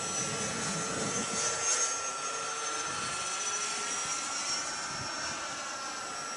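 120 mm electric ducted fan of a radio-controlled jet model in flight: a steady high-pitched whine over a rushing of air, with a higher tone that wavers and dips slightly as the jet turns.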